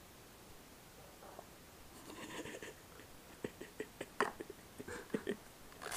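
Camera handling noise: faint rustling starting about two seconds in, then a quick run of small clicks and knocks as the camera is handled close up.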